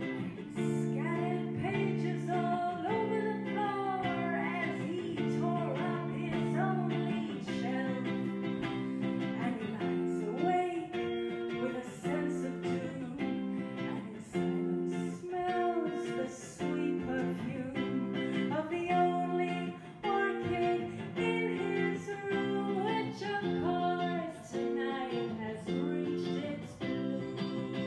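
A woman singing a melody over electric guitar chords, the chords changing every second or two.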